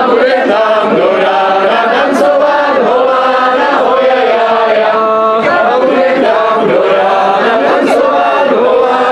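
A crowd of men and women singing a song together, loud and without a break.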